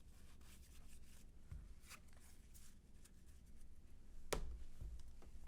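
Baseball cards being flipped through by hand: faint sliding and rustling with soft ticks, and one sharper tap about four seconds in.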